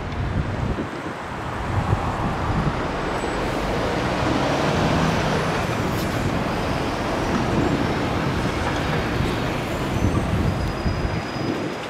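Steady road traffic noise from car, van and truck engines running in slow-moving city traffic.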